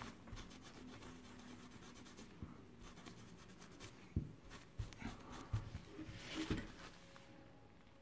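Faint rubbing and scratching of a paper tissue wiping a graphics card's circuit board around the GPU chip, a quick run of strokes in the first few seconds, then a few soft knocks about halfway through.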